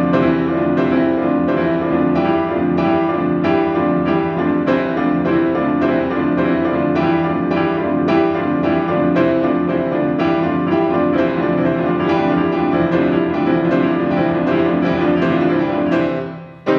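Steinway grand piano played in a quick, even stream of notes, stopping near the end.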